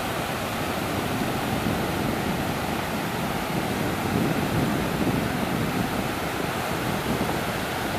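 Sea surf breaking and washing up the beach: a steady rushing wash that swells a little about four seconds in.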